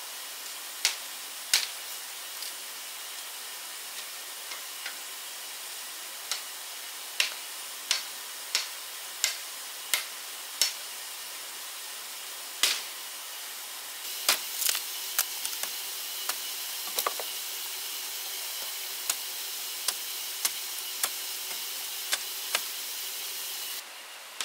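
Sharp knocks from blows of a hand tool during building work, in one stretch coming regularly about every 0.7 s, with a steady hiss underneath.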